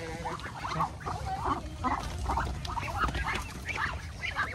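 A group of Muscovy ducks calling, many short calls coming irregularly and overlapping.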